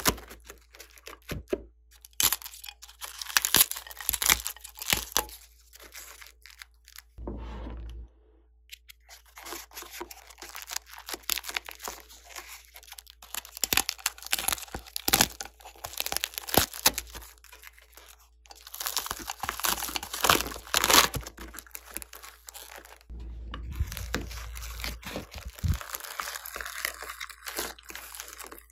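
Foam beads crunching and crackling as hands squeeze and press bead-covered clay shapes into sticky slime, with sticky tearing. The sound comes in irregular bursts with short pauses.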